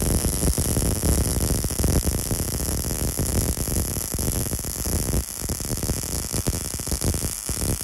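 MIG welding arc sizzling and crackling steadily as a bead is run, with the wire feed speed turned down to 35.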